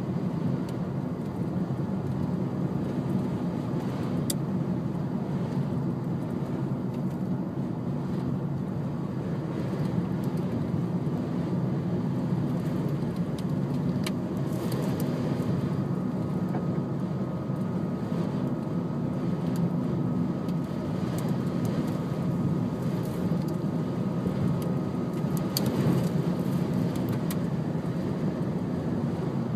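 Steady low rumble of a car driving, heard from inside its cabin, with a few faint ticks.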